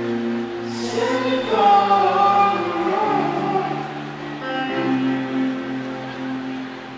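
Live band music: held guitar chords with several voices singing a slow melody over them in the first half.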